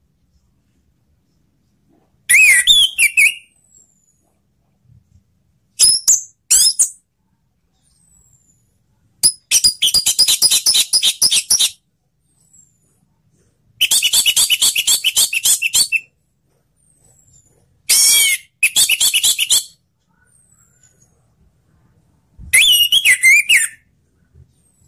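An orange-headed thrush singing loud, high phrases in six separate bursts with short silences between. Two of the longer bursts are rapid chattering strings of many quick repeated notes.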